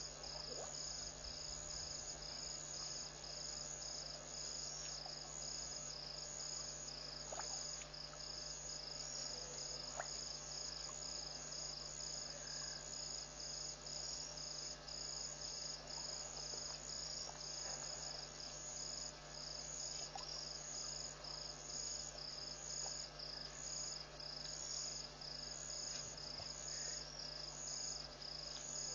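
A chorus of night insects trilling steadily in a high, evenly pulsing drone, with a few faint short chirps over it.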